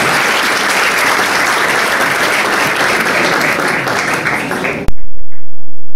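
Audience applauding in a hall, a steady dense clapping that cuts off abruptly near the end.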